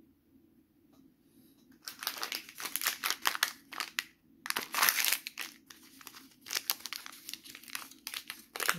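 Small plastic toy packet crinkling as it is pulled open by hand: quiet at first, then a dense run of crackles from about two seconds in, thinning to scattered crinkles near the end.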